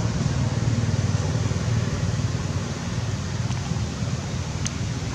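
Steady low rumble with an even hiss over it, and one faint click about four and a half seconds in.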